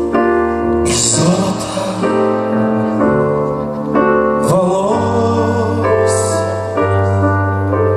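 Slow ballad accompaniment in an instrumental gap between sung lines: sustained piano and keyboard chords, changing every second or so.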